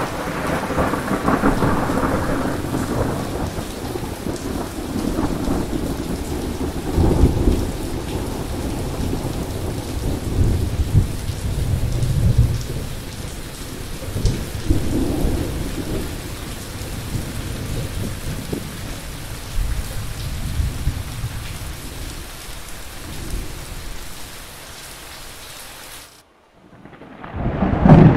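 Thunderstorm: steady heavy rain hissing, with thunder rumbling and rolling several times. The storm sound fades, cuts out suddenly about two seconds before the end, then swells back in loud with a deep rumble.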